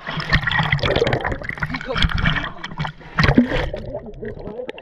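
Sea water splashing and sloshing against a camera held at the water's surface, turning to a duller underwater gurgle near the end as the camera goes under.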